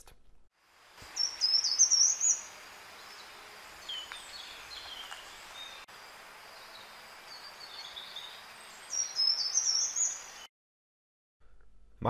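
Short-toed treecreeper singing: two short, high, slightly halting strophes, one about a second in and one near the end. Fainter bird chirps fall between them over a steady background hiss.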